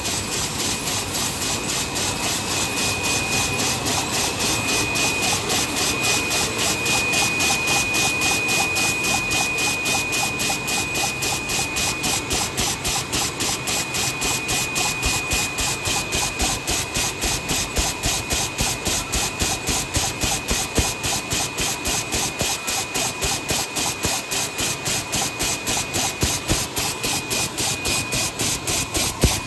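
Paper cup inspection machine running: a steady machine hiss that pulses evenly about three times a second as cups cycle through, over a thin, steady high whine.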